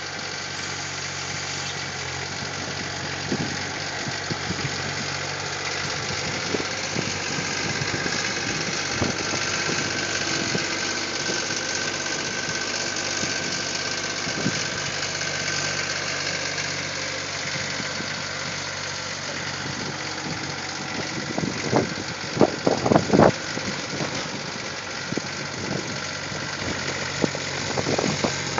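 Case skid steer's engine running steadily while clearing snow, with a cluster of sharp clanks and knocks a little past two-thirds of the way through.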